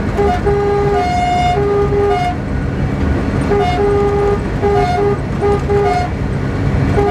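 Locomotive horns sounding a quick series of short two-note blasts over the steady rumble of trains running at speed.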